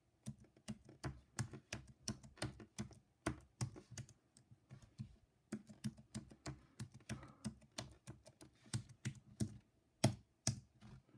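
Typing on a computer keyboard, entering a password: a steady run of quick key clicks with a short pause about halfway, and two louder keystrokes near the end.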